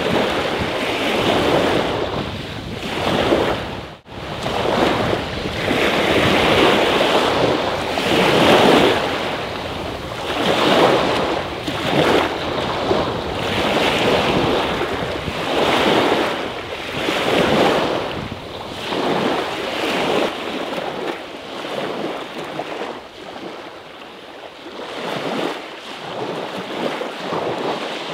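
Small sea waves washing onto the shore, one swell about every two seconds, with the sound briefly cutting out about four seconds in and the waves growing a little softer later on.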